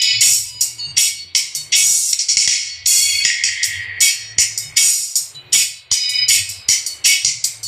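Music played through an Audio Star compression tweeter driver with no horn fitted, fed through a series capacitor, so only the treble comes through: bright, thin sharp percussion hits about three a second with almost no bass.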